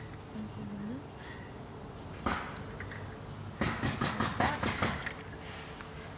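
Clicks and rattles of the dog cart's metal shafts and harness fittings being handled: a single sharp click about two seconds in, then a quick run of clicks and rattles lasting over a second. An insect chirps steadily in the background, about three chirps a second.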